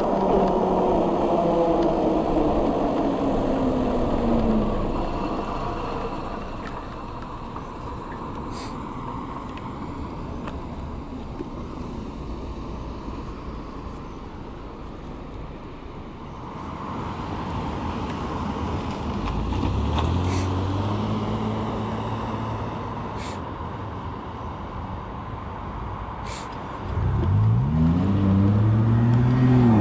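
Kepler e-bike's electric motor whining and falling in pitch as the bike slows to a stop, followed by a quieter stretch of low traffic hum with a few sharp clicks. Near the end the motor whine rises quickly in pitch as the bike pulls away.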